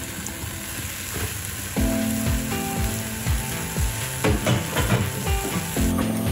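Peas and mushrooms sizzling with chopped bacon in a cast-iron pot: a steady frying hiss. Background music with a steady beat comes in about two seconds in and is louder than the sizzle.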